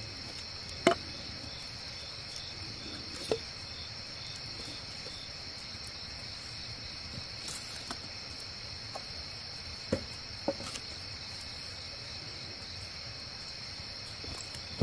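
Steady high-pitched insect chorus, with several sharp knocks scattered through it, the loudest about a second in.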